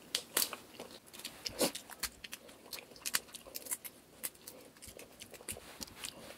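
Shell of a cooked black tiger shrimp being peeled off by hand, crackling and snapping in irregular sharp clicks.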